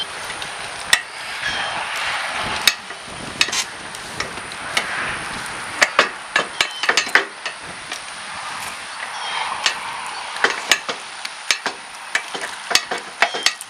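A plastic-wrapped golf cart seat back being worked down into its frame slots: irregular sharp knocks and clicks as it seats, over the crinkling and rustling of the plastic wrap.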